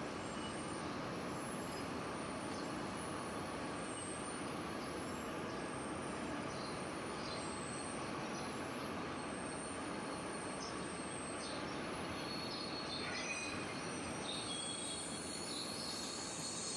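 Steady machine noise, even and without rhythm, with a few faint brief high tones near the end.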